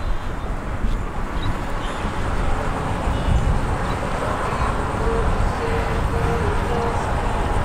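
Wind buffeting the microphone, an uneven low rumble over steady outdoor background noise, with a few faint short tones about five seconds in.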